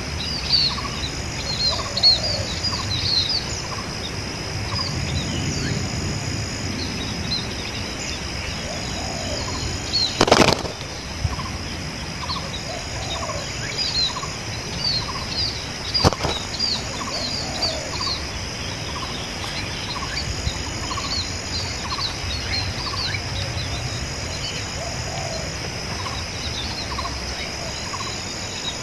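Spotted doves cooing now and then, with a low note every few seconds, over a steady high insect drone and dense small-bird chirping. Two sharp knocks stand out, about a third and about halfway through.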